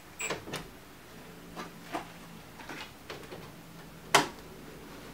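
Scattered light clicks and knocks of hands and a cordless drill being handled at the front of a van, with one sharper knock about four seconds in.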